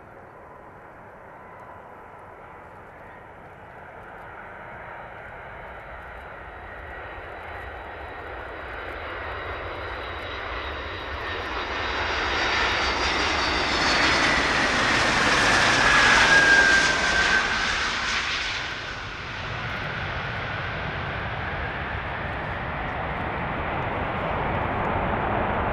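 Antonov An-124 jet engines growing steadily louder as the aircraft passes close by. A whine falls in pitch as it goes past about two-thirds through, then the engines settle into a steady loud rumble as it rolls down the runway.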